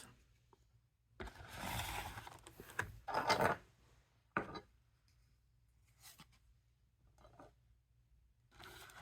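Trading cards being handled in the hand, slid and shuffled against one another: a few short rustling bursts, then a couple of faint ticks.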